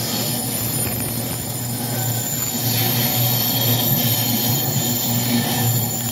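Empty container flat wagons of a freight train rolling past on curved track: a steady low hum and rolling noise, with thin high wheel squeal held throughout.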